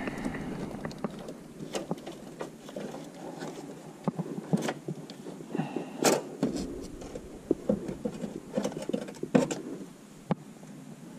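Hands working parts in the cramped space behind a van's dashboard: irregular clicks, knocks and rustling as the brake master cylinder is worked loose and lifted out, with sharper knocks a little after six seconds and again just after nine.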